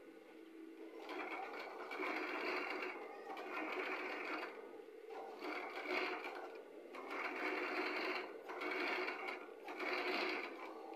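Industrial cylinder-arm sewing machine stitching a black padded bag in short runs of one to two seconds, with brief stops between them.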